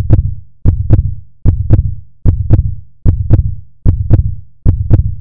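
Deep double thumps like a heartbeat, an electronic beat repeating evenly about every 0.8 seconds, each thump with a sharp click on top.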